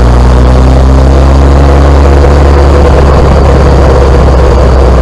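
Car running with a loud, steady low drone, the abnormal noise and vibration from the rear of the car. Its tones drift slightly lower in the first couple of seconds.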